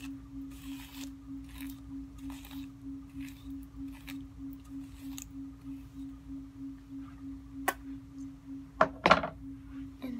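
Hairbrush strokes through long hair, a soft swish about once a second in the first half, over a steady low hum. Near the end comes a sharp click, then a louder thump.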